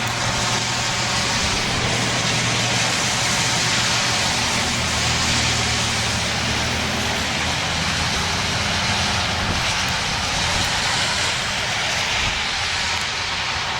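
STH-10 outdoor warning siren sounding on its attack-signal test, heard up close as a steady rushing, blaring tone with a low hum that steps down in pitch partway through.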